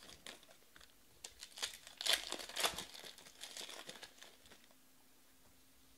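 Foil wrapper of a baseball card pack crinkling and crackling as the cards are pulled out of it, loudest about two seconds in and dying away after about four seconds.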